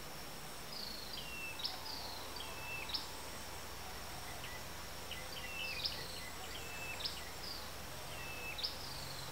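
Bird repeating short chirping calls every second or so, each a quick high note dropping to a lower one. Under them run a steady high insect drone and a faint low hum.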